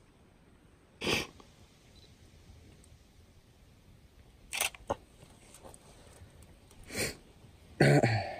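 A person's short breathy nasal sounds close to the microphone: three quick sniffs, then a louder sneeze near the end.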